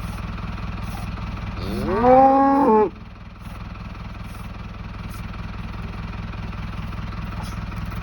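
A cow moos once, about a second and a half in: the call rises in pitch, holds for about a second, then cuts off abruptly. A steady low engine hum runs underneath.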